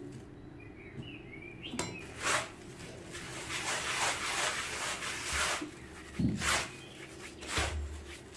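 Hands rubbing coarse semolina with sugar and oil in a bowl: repeated grainy, rustling swishes, without kneading it into a dough.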